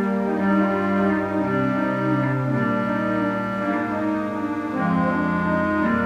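Pipe organ playing sustained chords over a moving bass line, the held notes changing every second or so.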